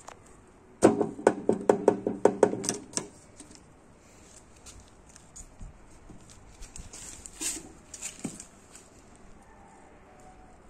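A quick run of about ten sharp knocks over two seconds, each with a short low ringing, followed by faint scattered taps and rustles.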